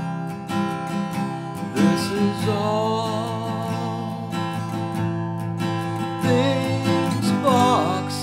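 Background music with guitar, a melody gliding over held chords.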